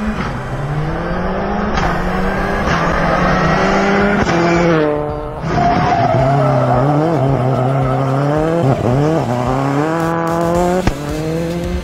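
Engine sound of a Subaru Impreza WRX STI rally car, as in the title's "real sound engine", revving up and dropping back in steps like gear changes. It falls off briefly around five seconds in, then rises again. Tyre squeal and skidding come with it.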